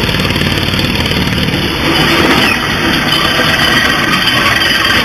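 Small vehicle powered by a three-cylinder compressed-air engine driving across gravel, with a loud, steady running noise.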